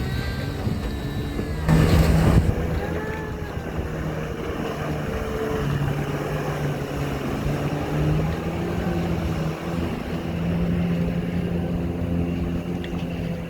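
Jet ski engine running on the water, its pitch rising and falling a little as the throttle changes, with a brief loud rush of splash or wind noise about two seconds in.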